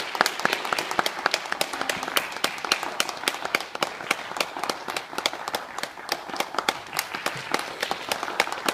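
Small audience applauding, a dense patter of handclaps with some sharp single claps standing out.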